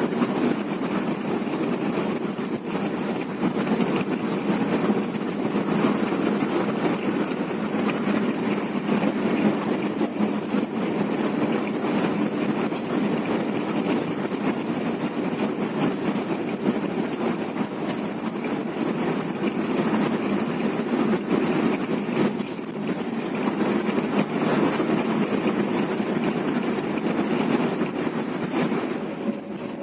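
Steady drone of a moving bus: engine and road noise running on without a break.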